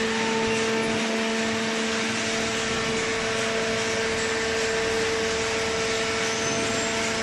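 Hydraulic paper baler running: a steady machine hum with a low tone and a higher tone held over an even hiss.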